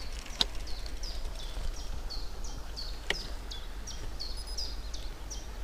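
A small bird calling over and over: short, high notes that slide downward, about two to three a second, over a low rumble of wind. Two sharp clicks stand out, one near the start and one about halfway through.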